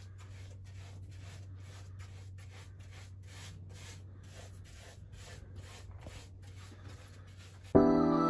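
Paintbrush stroking paint onto the wooden boards of a wall shelf, a soft brushing rub repeating about three times a second. Background music comes in suddenly near the end.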